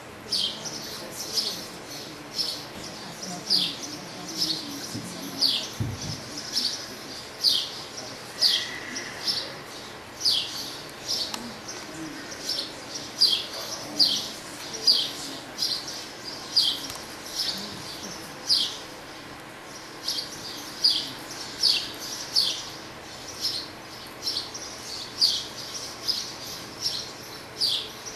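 A small bird chirping over and over, short descending chips about once or twice a second, over a low background hum.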